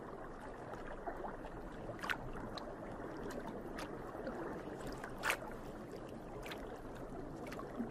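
Steady muffled underwater water ambience, a low gurgling hiss, with scattered short clicks, the loudest about five seconds in.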